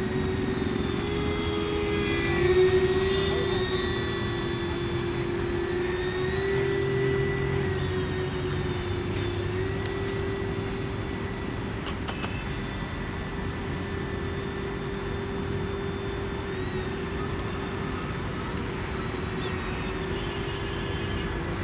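Small electric motors spinning the propeller fans of a homemade RC air boat, giving a steady whine that wavers up and down in pitch as the throttle changes, over a low rushing noise.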